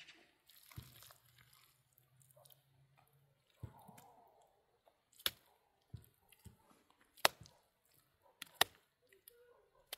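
Irregular sharp knocks and taps, the three loudest about five, seven and eight and a half seconds in, with a faint low hum during the first few seconds.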